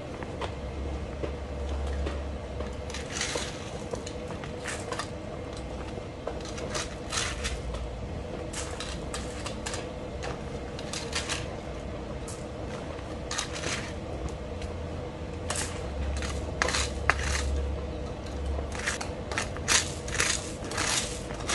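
Gravel scooped and scattered by gloved hands onto a plastic sheet: repeated short crunches and rattles of stones, coming closer together toward the end.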